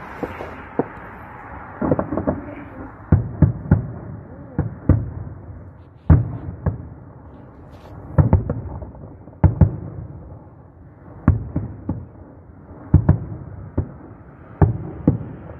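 Aerial fireworks shells bursting overhead: a string of sharp bangs, about one a second and often in quick pairs, each trailing off in a low rumble.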